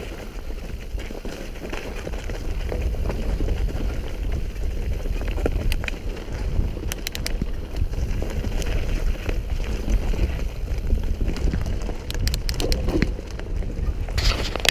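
Mountain bike rolling fast down a rough dirt and stone trail: a steady rumble of wind on the camera microphone and tyres on the ground, with the bike rattling and a scatter of sharp clicks, most of them near the end.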